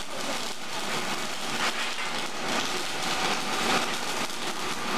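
Electric arc welding on steel fence mesh and tube: a continuous crackling sizzle that swells and dips as the welds go on.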